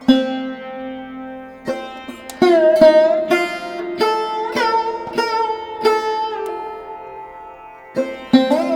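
Background music: a plucked string instrument playing a slow melody of single notes that ring and fade, several sliding up in pitch, with a short lull before the notes pick up again near the end.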